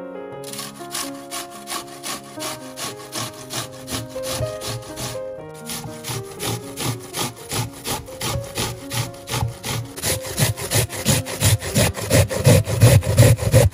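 An onion being grated on a stainless-steel box grater: quick, regular rasping strokes, two to three a second, with a short pause about five seconds in and the strokes getting louder near the end. Soft piano music plays underneath.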